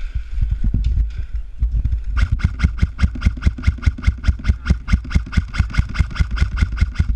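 An airsoft electric rifle fires a steady rapid string of shots, about eight a second, as covering fire; the string starts about two seconds in and stops just before the end. Before it come irregular low thumps of handling or movement.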